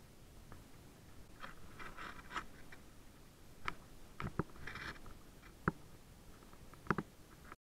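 Sparse clicks, knocks and brief rustles from a Wayfarer sailing dinghy's fittings and rigging while under sail, with a sharp double knock near the end. The sound cuts off abruptly just before the end.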